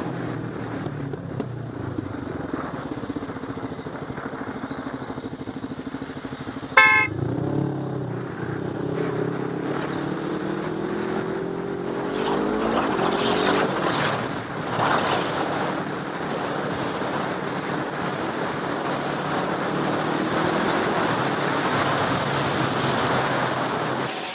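Motorcycle engine running under road and wind noise, with a short, loud vehicle horn blast about seven seconds in. After the horn the engine rises in pitch several times as the bike accelerates.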